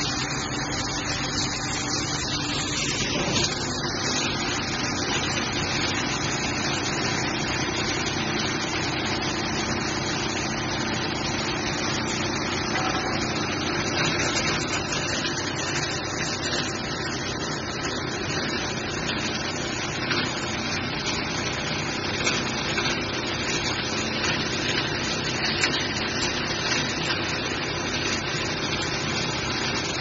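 Steady machinery noise of an ABS plastic sheet extrusion line running, even throughout, with a few faint steady hums beneath it.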